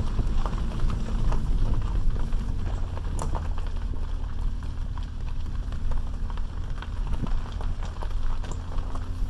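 Vehicle driven slowly over a rough gravel road, heard from inside the cab: a steady low engine and road drone with scattered knocks and rattles as the tyres jolt over ruts and stones.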